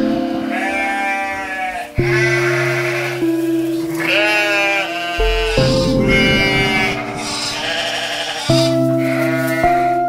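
Sheep bleating, several quavering calls one after another, over background music of slow held chords.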